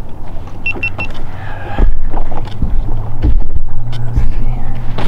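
Three quick high beeps from a GoPro acknowledging the voice command to stop recording, then the boat's motor humming steadily and building, with wind buffeting the microphone in low thumps.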